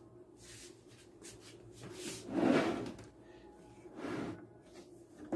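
Two sliding, scraping handling sounds, the louder one about two seconds in and a shorter one about four seconds in.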